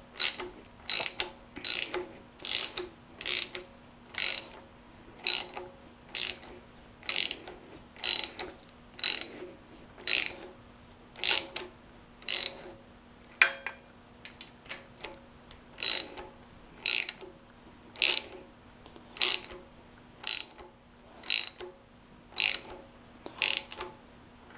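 Hand ratchet wrench clicking in short bursts about once a second as it is swung back and forth, tightening a 13 mm thermostat housing bolt. There is a short irregular break about halfway through.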